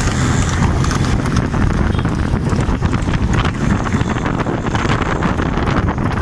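Hoofbeats of horses pulling two-wheeled racing carts at speed on an asphalt road, under heavy wind rumble on the microphone and the running of motorbikes alongside.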